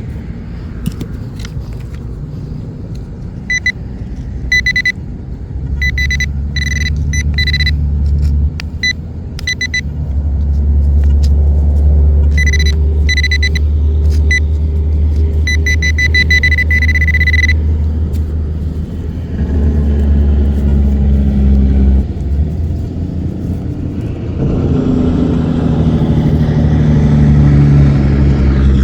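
Fisher Gold Bug metal detector giving repeated short high-pitched beeps, with a quick run of beeps about two-thirds of the way through, over a heavy low rumble. The beeps stop and lower wavering tones follow near the end.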